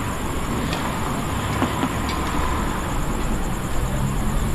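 Road traffic crossing a railway level crossing: a steady rumble of car and motorbike engines and tyres, with a few sharp knocks about one to two seconds in as wheels go over the rails.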